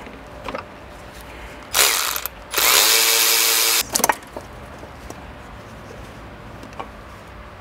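Cordless electric ratchet running in two bursts, a short one and then one of about a second, at a steady motor pitch as it spins out a tight E10 Torx bolt holding the oil filter housing to the cylinder head. A few small clicks follow as the freed housing is handled.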